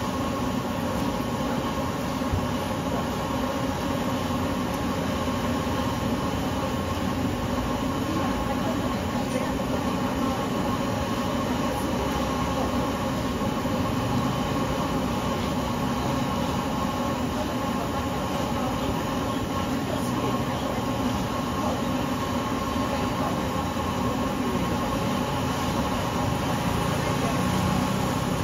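Oil sizzling steadily in a large wok as battered chunks deep-fry, a mesh skimmer stirring through them, over a steady low rumble.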